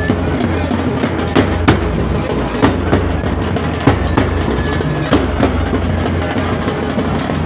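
Pipe band playing: bass and tenor drums beating under a steady sustained tone. Loud, sharp drum strikes come in pairs about every second and a quarter.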